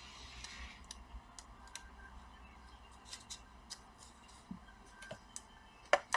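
Light, scattered clicks and taps of small plastic laptop parts being handled as keyboard ribbon cables are fitted back into their connectors, with two louder clicks near the end.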